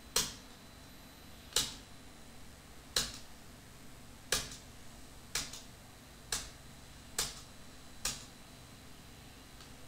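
A computer keyboard key, most likely Enter, pressed eight times about once a second. Each press is a sharp click with a short tail.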